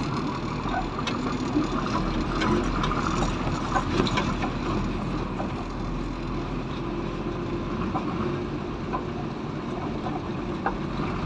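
A motor vehicle running: an even rumbling noise with scattered small clicks and knocks throughout.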